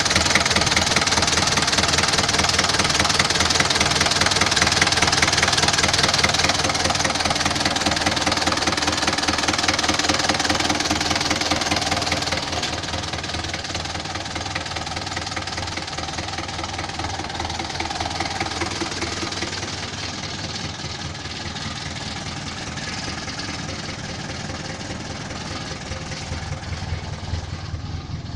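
Isuzu 4BA1 four-cylinder diesel engine idling steadily. About twelve seconds in it drops a little in level and stays steady after that.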